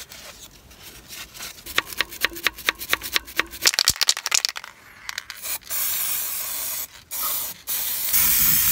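Aerosol spray can rattling in quick clicks as it is shaken, then hissing in long spray bursts with two short breaks, from just past halfway on.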